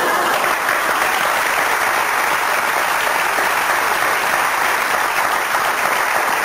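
Studio audience applauding, a steady dense clapping.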